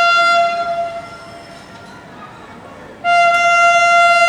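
Indian Railways locomotive horn of the Purvanchal Express: a long single-note blast that fades out about a second in, then, after a two-second pause, a second blast near the end.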